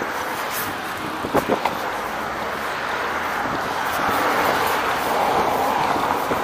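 Wind rushing over a moving camera's microphone, mixed with the hiss of a tyre rolling over damp pavement. A few light knocks come about a second and a half in, and the noise swells between about four and six seconds.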